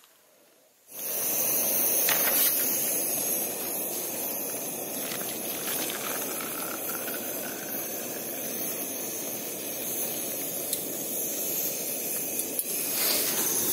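A steady, strong hiss starts abruptly about a second in and runs on evenly, with a few faint clicks over it.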